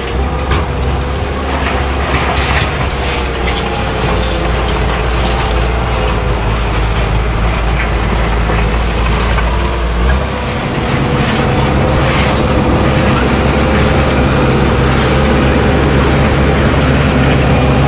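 Diesel engine of a small crawler dozer running steadily as it pushes and spreads dirt and gravel, with occasional knocks; the engine note changes about ten seconds in.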